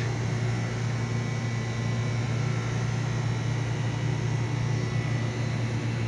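Air-conditioning package units running: a steady low mechanical hum with an even rush of air noise.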